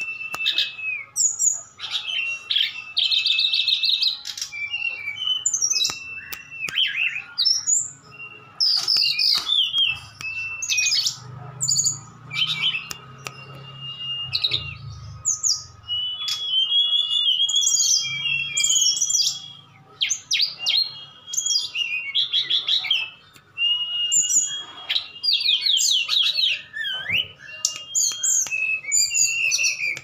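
Caged sikatan rimba dada coklat (SRDC) and tledekan gunung, two small flycatchers, singing against each other in a duel: thin, level whistles and fast, high trills, one phrase after another with hardly a pause.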